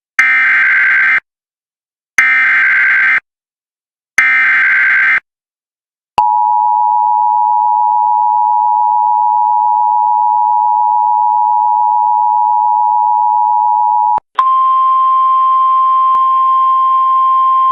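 Emergency Alert System header and alert tones: three one-second bursts of warbling digital data a second apart, then the two-tone EAS attention signal held steady for about eight seconds, then, after a brief break, a single steady alert tone.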